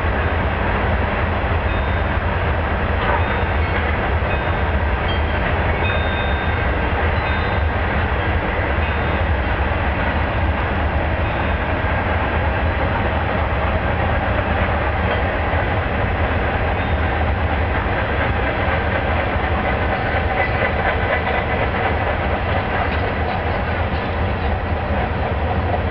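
Freight train cars rolling past at steady speed: a continuous, even rumble of steel wheels on rail.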